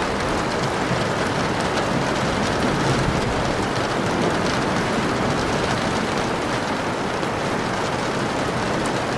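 Steady rain falling, an even hiss with fine patter that holds at a constant level.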